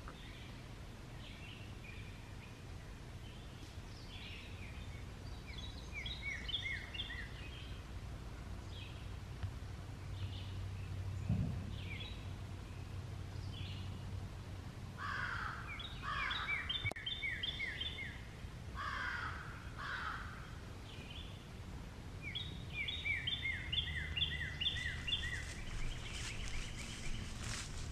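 Woodland songbirds singing: several songs made of quick series of short falling notes, with a few lower calls in between, over a steady low rumble of ambient noise. Near the end there is a brief rustling.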